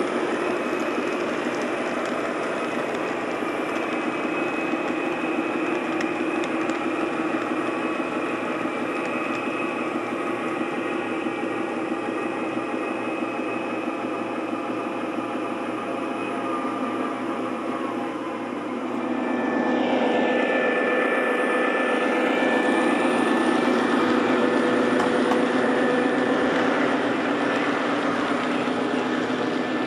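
O scale model freight train running on its track: a steady rumble and hum of wheels on rail and motors. It gets louder about two-thirds of the way through, as the train passes close by.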